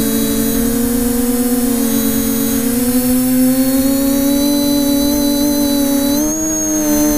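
Multirotor drone's electric motors and propellers running, heard from the camera it carries: a loud, steady hum with a high whine above it. The pitch drifts slowly up and down as the drone manoeuvres and rises a little about six seconds in.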